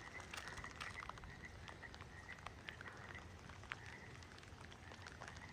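Faint chorus of Yosemite toads calling, a thin steady trilling around one high pitch, with scattered light ticks.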